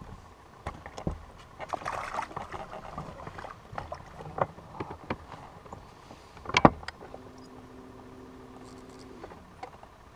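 Scattered clicks and knocks of gear being handled on a small fishing boat, with one loud sharp knock about six and a half seconds in, followed by a steady low hum for about two seconds.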